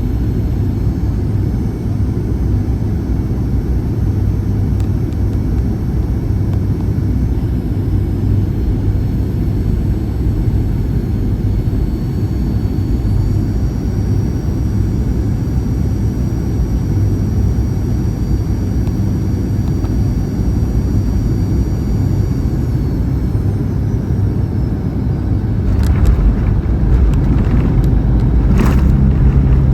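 Cabin noise of a Boeing 737-800: a steady airflow rumble with the high whine of its CFM56 engines, which steps down about three quarters of the way through as thrust comes back. Then two sharp bumps a few seconds apart and a louder low rumble, consistent with the wheels touching down on the runway.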